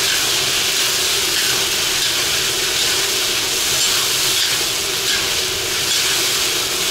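Pieces of lamb and bone frying in hot oil in a large plov kazan, giving a loud, steady sizzle as they are stirred with a skimmer: the first stage of cooking plov.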